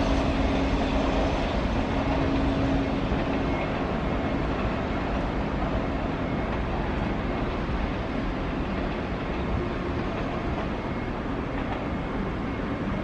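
JR East E4 series 'Max' double-decker Shinkansen running away down the line, its rumble slowly fading as it recedes, with a steady hum that dies away over the first few seconds.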